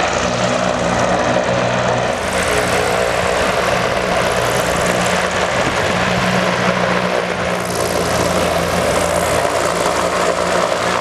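Zeppelin NT airship flying low overhead: the steady drone of its piston engines and propellers, with several low hums under a rushing noise that grows brighter about two seconds in and again near eight seconds.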